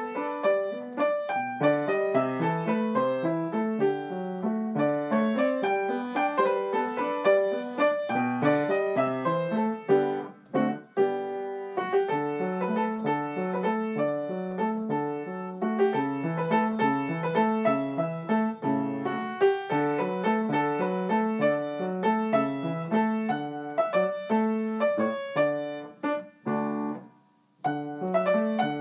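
Solo piano music: a steady flow of quick notes in several voices, with brief pauses about ten seconds in and near the end.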